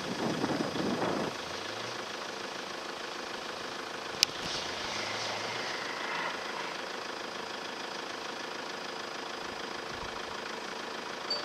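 Engine of a distant off-road 4x4 running at low speed as it crawls over rough ground, its note rising a little twice. A short rush of noise comes at the start, and a single sharp click about four seconds in.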